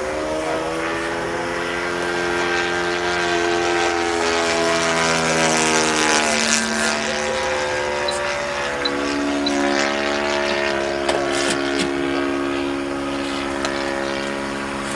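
Goldberg Ultimate model biplane's engine and propeller running in flight, a steady drone whose pitch slides down and up several times. It is loudest around the middle.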